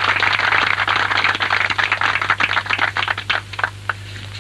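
A small group clapping, the applause thinning to a few scattered claps and dying out near the end.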